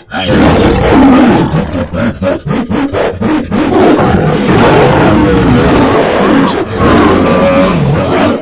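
Big-cat roars and snarls, loud and nearly continuous, spliced together from several recordings into a creature sound effect.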